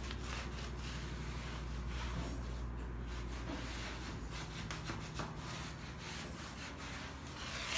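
A cloth rubbing along a wooden window frame in repeated strokes, polishing the wood with furniture polish.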